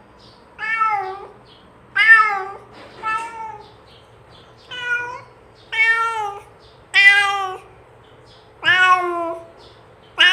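A domestic cat meowing repeatedly, about eight meows each lasting under a second, calling to another cat.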